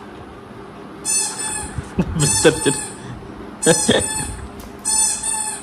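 German Shepherd dog whining: about five high-pitched, drawn-out whines, each about half a second, with a lower moaning vocalisation mixed in around two and four seconds in.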